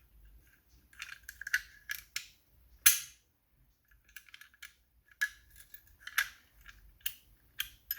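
Metal clicks, clinks and knocks from Chubb lever locks being handled and turned over, irregular and scattered, with one sharper knock about three seconds in.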